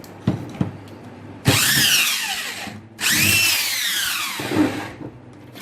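Power drill-driver run in two bursts of a couple of seconds each, its whine rising and then sinking in pitch, while backing screws out of an angle grinder's housing. A few light knocks of handling come before.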